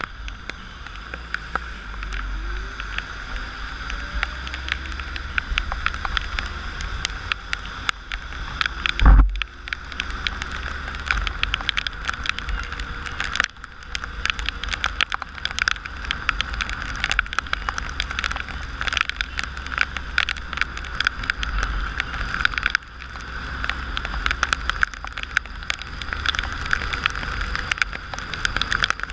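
Raindrops hitting the camera on a motorcycle ridden in heavy rain, a dense patter of sharp clicks over steady wind rumble. One loud low thump comes about nine seconds in.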